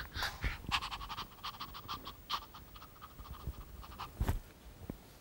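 Quick, breathy panting: a fast run of short puffs that thins out, with one louder puff about four seconds in.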